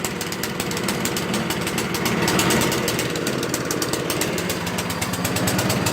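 Snowblower's small gasoline engine running rough with a fast, even rattling beat. It is running lean, starving for fuel because the choke was left off.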